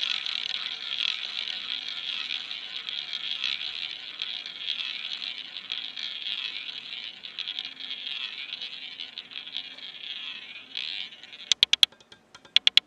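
Roulette ball rolling around a spinning roulette wheel's track with a steady whirr, which dies away near the end. It is followed by a quick run of sharp clicks, about four and then three, as the ball drops and clatters among the pockets.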